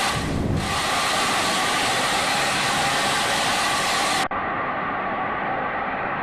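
Steady noise of road traffic: vehicle engine and tyre noise with a hiss. About four seconds in, the hiss cuts off abruptly and the noise goes on more muffled.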